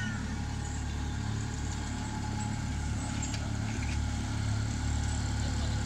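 Diesel-outline miniature railway locomotive running steadily with a low engine hum as it pulls its train closer, growing gradually louder.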